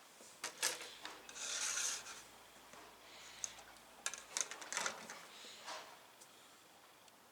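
Plastic model-kit sprues and their clear plastic bag being handled: a rustle of crinkling plastic, with a few light clicks of parts tapping together.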